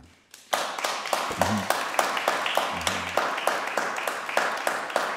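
Small audience clapping and applauding at the end of a song. It begins about half a second in and carries on steadily.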